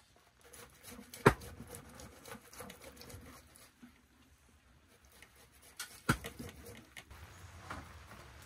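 Food-preparation handling sounds: light pattering and clatter of bowls and utensils on a table, with two sharp knocks, the loudest about a second in and another about six seconds in.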